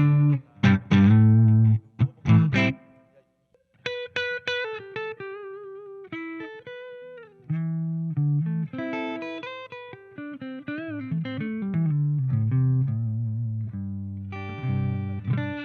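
2016 Gibson Les Paul Custom electric guitar played: a quick run of strummed chords, a short pause, then single-note lead lines with vibrato, ending on held, ringing chords.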